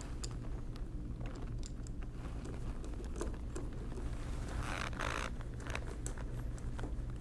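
Light clicks and scrapes of hands handling a screwdriver and the metal parts of a mechanical calculator's frame. There is a brief rustle about five seconds in, over a steady low hum.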